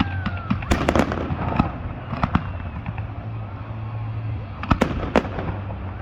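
Fireworks going off: a run of sharp bangs and pops about a second in and another group near five seconds, with scattered cracks in between.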